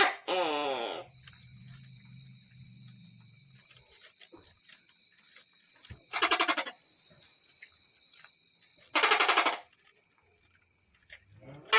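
Tokay gecko calling: a short falling call just after the start, then separate short pulsed calls about six and nine seconds in and again near the end. A steady high-pitched insect chorus runs underneath.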